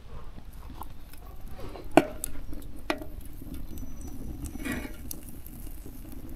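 Aluminium camping frying pan set down with a clank onto logs over a wood fire about two seconds in, then a lighter knock about a second later. A steady low crackle follows as the pan sits over the fire.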